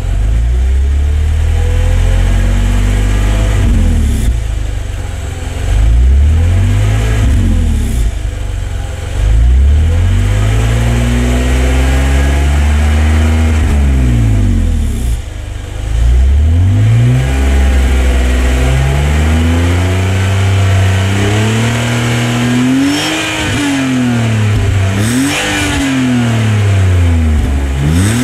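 BMW E46 330Ci's 3.0-litre straight-six revved again and again through its stock valved exhaust, the engine note climbing and falling back in long sweeps, then in quicker short blips near the end.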